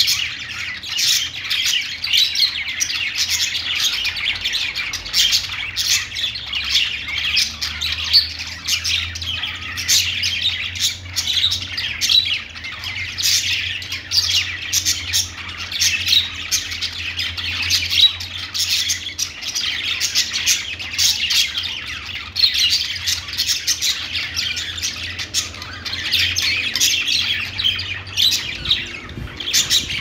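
A cageful of budgerigars chirping and calling together: many short, overlapping calls in a continuous chatter with no pauses.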